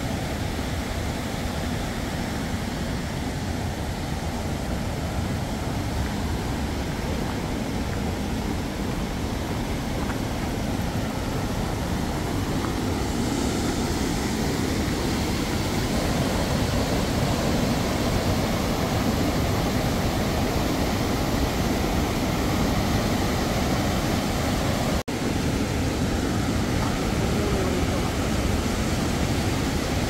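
Fast Alpine mountain stream rushing over boulders in white water, a steady loud noise, broken by a momentary gap about 25 seconds in.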